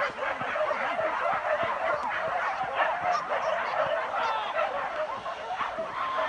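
Many dogs of a wild-boar hunting pack barking at once, heard as a dense, unbroken chorus of overlapping calls.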